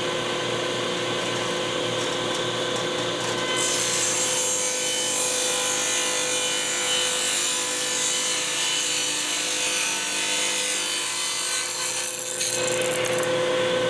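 Table saw running with a steady whine, ripping a thin strip off a wood board. The cutting hiss of the blade in the wood starts about four seconds in and stops a little before the end, with the saw spinning freely before and after it.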